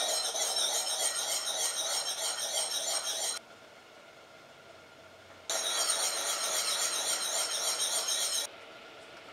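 Saucepan of balsamic glaze boiling hard on an electric hob, a steady sizzling hiss as it reduces. It cuts out abruptly for about two seconds a third of the way in, returns, and stops again near the end.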